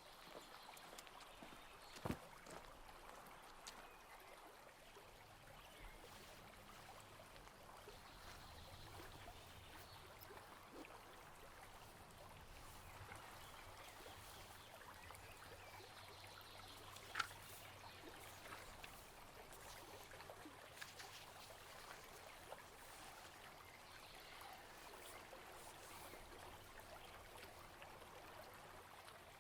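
Faint, steady trickle of flowing water, with two sharp clicks, one about two seconds in and a louder one just past the halfway point.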